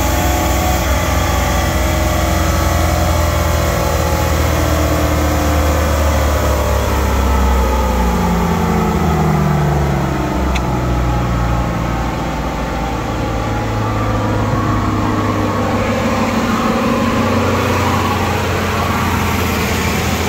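Jeep Wrangler TJ's 4.0-litre inline-six running hard on a chassis dyno near the top of a full-throttle pull, then falling in revs over a few seconds around the middle as the engine and dyno rollers coast down, settling to steady low running.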